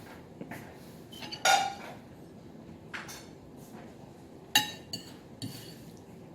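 Dishes and cutlery clinking: four separate knocks, the loudest about a second and a half in and again about four and a half seconds in, each of these two ringing briefly.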